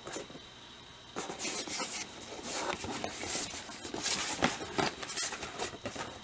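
Cardboard plastic-model kit box and its paper painting-guide sheet handled and turned over in the hands: a run of irregular rustling and scraping strokes that starts about a second in.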